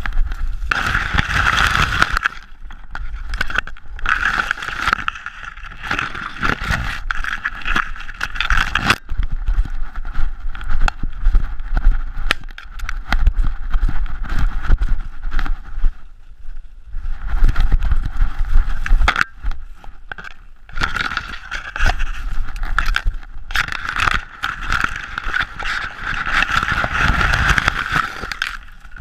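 Dry grass and brush scraping and rustling against a GoPro housing strapped to a Weimaraner as it runs through cover, with irregular knocks and bumps on the camera. The noise comes in loud stretches with a few brief lulls.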